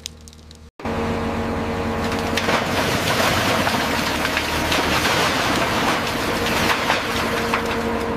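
Heavy demolition excavator working a grapple: a steady engine and hydraulic hum under a dense clatter and crackle of tearing, falling aluminium debris. It starts suddenly about a second in.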